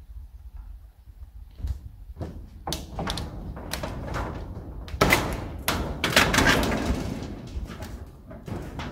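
Old corrugated steel roof sheet being pried up and lifted off the roof battens: sheet metal scraping, flexing and rattling, starting a few seconds in and loudest just after a sharp clatter around the middle.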